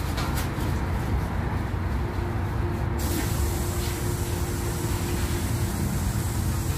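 LiAZ 5292.71 city bus idling at a stop with its doors open, a steady low rumble. About three seconds in, a steady high air hiss from the bus's pneumatic system starts suddenly and keeps going.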